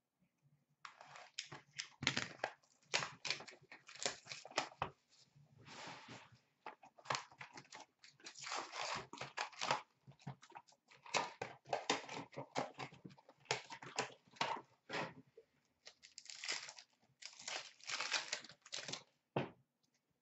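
A 2016-17 Upper Deck Trilogy hockey card box being torn open and its wrapped card packs handled and ripped, in irregular bursts of tearing and crinkling that stop shortly before the end.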